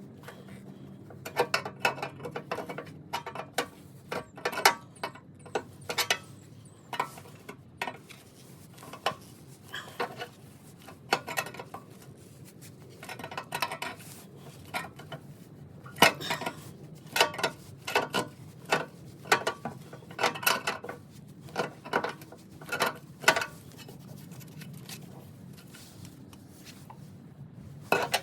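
Metal hand tools and steel parts clinking and knocking together irregularly, dozens of short sharp metallic strikes with brief ringing.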